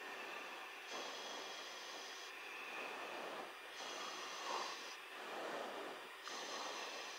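Hiss of an aircraft's intercom and radio feed with no one talking, the upper hiss cutting in and out every second or so and soft swells of noise rising and falling underneath.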